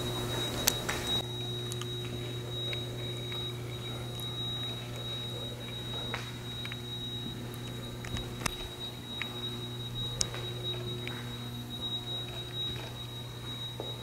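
Steady high-pitched electronic alarm tone that goes on without a break over a low electrical hum, with scattered light clicks and knocks.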